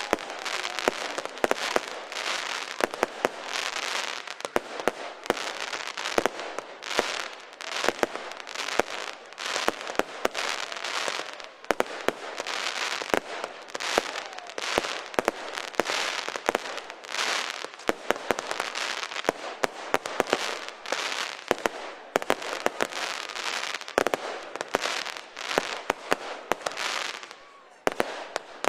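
Fireworks display in full swing: rapid sharp bangs, several a second, over a string of crackling bursts each lasting about a second.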